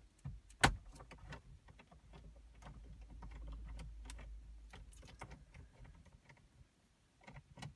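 Screwdriver turning out 7mm screws from plastic dashboard trim: a run of small, irregular clicks and ticks, with one sharper click about a second in.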